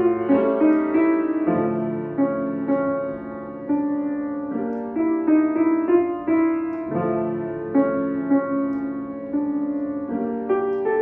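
Grand piano played solo: a melody over held chords, with notes changing every half second or so and a few louder accents.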